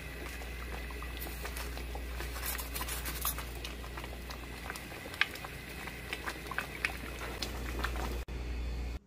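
Thick pumpkin porridge with glutinous rice bubbling in a pot on the stove, its bubbles bursting in scattered soft pops over a low steady hum.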